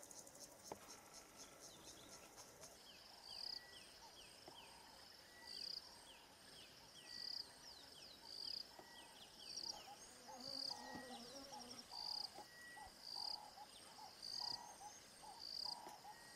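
Faint chorus of wild birds and insects. A fast high trill stops about three seconds in. After that a high note repeats about every one and a half to two seconds over quick falling chirps, and lower warbling calls join in the second half.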